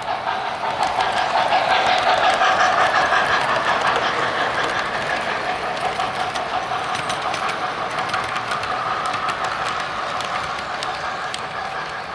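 O-gauge model freight train behind an MTH RailKing 0-6-0 steam switcher rolling past on its track: a steady clattering of wheels over the rail joints, loudest about two seconds in and slowly fading as the train moves away.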